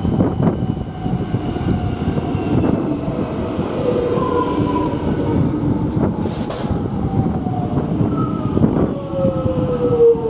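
X'Trapolis 100 electric multiple unit pulling into a platform, its wheels and running gear rumbling while several whines fall in pitch as the train brakes to a stop. A brief hiss comes about six seconds in.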